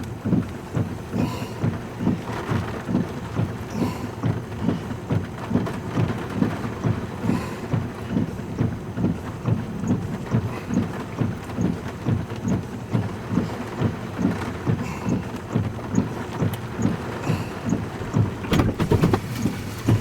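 Four-wheel-drive vehicle driving on a muddy dirt road, with a steady rhythmic thumping about two to three times a second.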